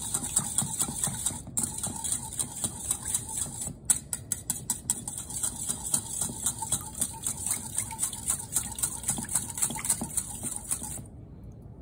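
Wire balloon whisk beating an egg, milk and vanilla mixture in a glass mixing bowl: a rapid, even clicking of the wires against the bowl over a wet swish. It stops about eleven seconds in.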